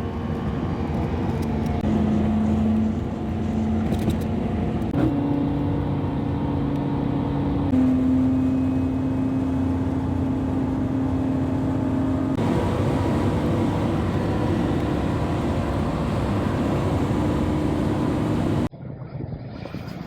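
Car engine running steadily at cruising speed in a series of cut-together driving clips, its drone holding a steady pitch within each clip and jumping to a new pitch at each cut. Near the end it cuts abruptly to a much quieter stretch.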